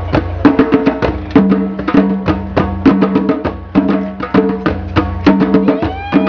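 A group of djembe-style hand drums played together in a fast, busy rhythm, sharp slaps over ringing low tones. A short rising call sounds near the end.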